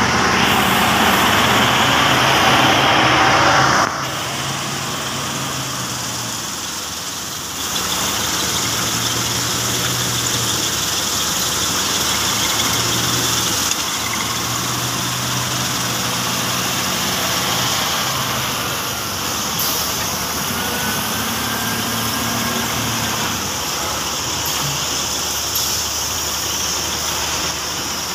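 Caterpillar 966F wheel loader's diesel engine working under load, its revs rising and falling in stretches as the loader digs into crushed stone and lifts its bucket. A loud rushing noise fills the first few seconds and stops abruptly.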